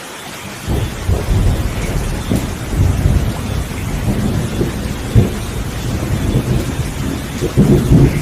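Steady heavy rain with thunder: a long rolling rumble breaks in under a second in, with cracks along the way, and swells loudest near the end.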